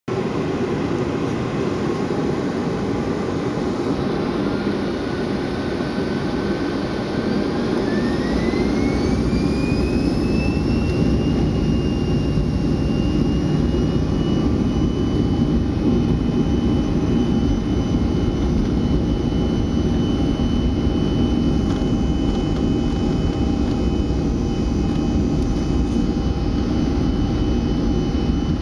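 CFM56 turbofan engines of a Boeing 737-400 heard from inside the cabin, running with a steady rumble and a whine that rises in pitch from about four to twelve seconds in and then holds: the engines spooling up to takeoff thrust.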